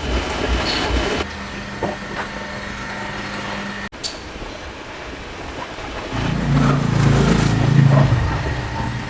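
Car engine running, growing louder between about six and eight seconds in, with a brief dropout in the sound about four seconds in.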